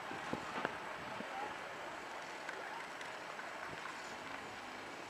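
Steady outdoor background noise with wind on the microphone, broken by two short knocks in the first second.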